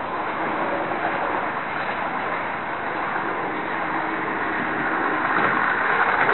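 Märklin model train running on its track, heard from a tiny camera riding on board: a steady rolling rattle and whir of wheels and motor on the rails. It grows louder near the end as a second model train approaches on the next track.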